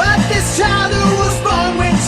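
Loud rock-style band music with bending melodic lines over a steady rhythm.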